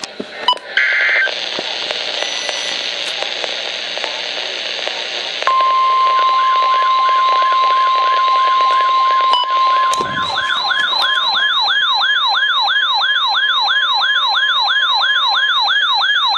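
NOAA weather radio receivers sounding an emergency alert: short screechy data bursts near the start, then radio hiss, then about five and a half seconds in the steady 1050 Hz warning alarm tone. About ten seconds in it gives way to a receiver's own fast warbling alert siren, about four warbles a second, signalling that a warning has been issued.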